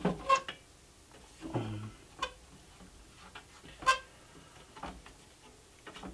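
A few scattered metallic clicks and clinks as the sheet-metal rear panel of an HP 54501A oscilloscope is handled and worked loose. The sharpest is a short ringing clink about four seconds in.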